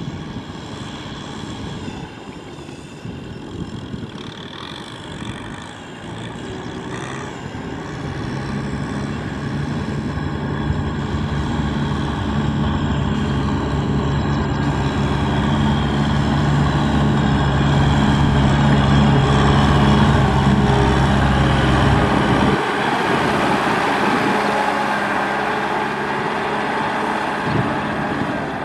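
Kubota tractor's diesel engine running under load as it pulls a trailer, growing steadily louder as it approaches and passes close. About 22 seconds in, the deep engine note drops away suddenly and a lighter engine sound carries on.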